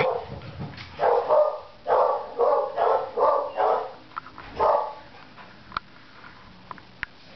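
A dog barking in a run of about seven short barks over the first five seconds, then stopping. A few sharp clicks follow near the end.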